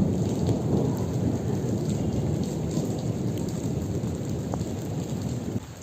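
Heavy rain with a long rumble of thunder, slowly fading, then dropping off suddenly near the end.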